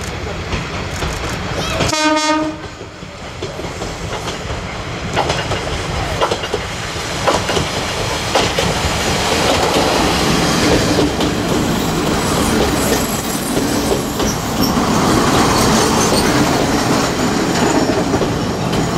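Kominato Railway KiHa 200 diesel railcar sounding one short horn blast about two seconds in, then running past at close range, its wheels clacking over rail joints and its running sound growing louder as it draws alongside.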